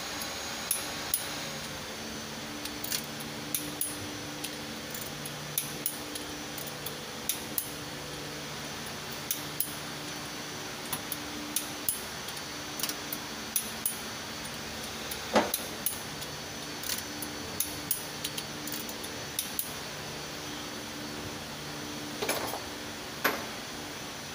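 Metal hand tools and parts clinking and tapping irregularly during engine and transmission work, a couple of dozen sharp clicks with a louder one about midway, over a low hum.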